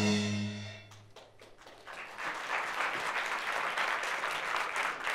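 The last note of the song dies away in the first second, then about two seconds in an audience starts applauding, a steady patter of clapping.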